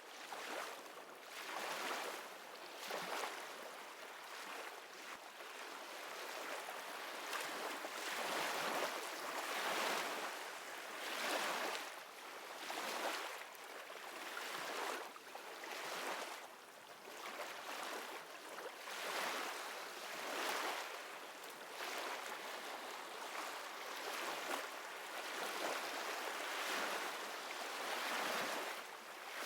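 Recorded ocean surf: a steady wash of water noise that swells and fades every two seconds or so, with no music or voice over it.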